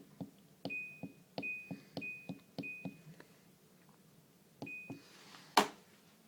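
Daewoo DWDM301WP washing machine control panel being operated: button clicks, each followed by a short electronic beep of the same pitch, four in a row about two-thirds of a second apart, then one more click and beep, and a loud sharp click near the end.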